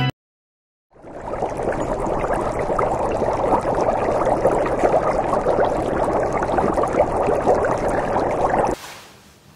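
Liquid bubbling and gurgling steadily, a dense run of small pops and trickles; it fades in about a second in after silence and cuts off suddenly near the end.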